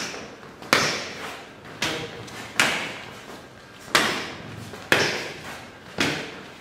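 Sharp slaps of forearm striking forearm as punches are met with outside blocks, alternating left and right, about one hit a second, six or seven in all, each trailing off in a short echo.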